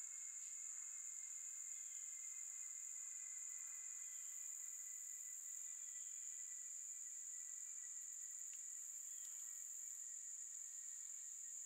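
Summer woodland insect chorus: a steady, unbroken high-pitched drone of insects, with a fainter, lower steady tone beneath it.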